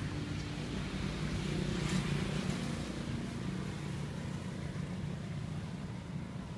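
Road traffic: a motor vehicle's engine running steadily, swelling as it passes about two seconds in.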